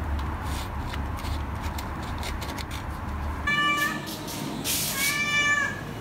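Domestic cat meowing twice, two short calls about a second and a half apart. Before them a low steady rumble.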